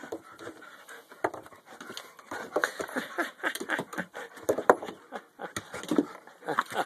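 German Shepherd dog panting in quick, irregular breaths with a stick held in its mouth. There is a sharp click a little over halfway through.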